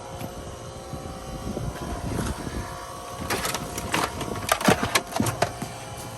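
A steady machine hum runs throughout. About three seconds in, a quick series of clatters and rustles begins, like items being handled and tossed, and ends before the close.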